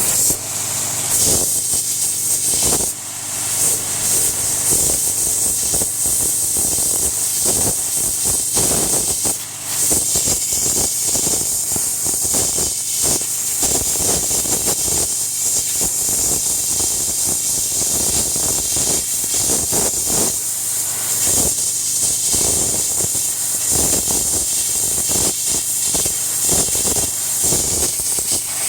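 Landa 3000 psi pressure washer's high-pressure water jet spraying against a block of hardwood: a loud, steady, hard hiss with ragged spattering, and the machine running underneath. The spray dips briefly about three and nine seconds in.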